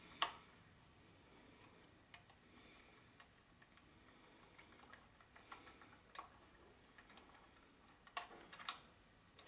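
Faint, irregular clicks and ticks of a screwdriver working a long screw out of the bottom plate of a small mini-PC case, with small handling knocks; two sharper clicks come close together near the end.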